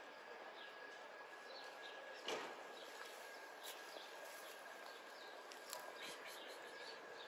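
Quiet outdoor background with small birds chirping on and off, under a steady faint high tone. A single soft thump about two seconds in.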